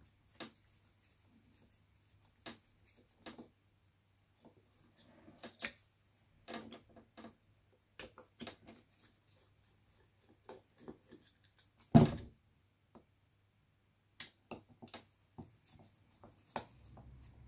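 Scattered small clicks and taps of a screwdriver and the metal carburettor body on a workbench as the float bowl screws of a Suzuki GT750 carburettor are worked loose, with one sharp knock about twelve seconds in.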